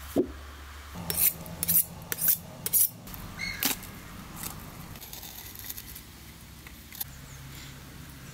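Kitchen utensils being handled: a quick run of about six short, sharp clinks and scrapes within the first few seconds, then only a faint steady low hum.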